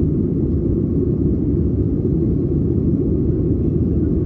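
Steady low roar of a jet airliner's engines and airflow, heard from inside the passenger cabin.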